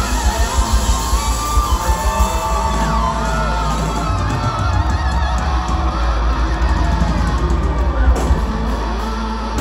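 Live rock band playing loudly, led by an SG-style electric guitar playing bending lead notes over drums and bass.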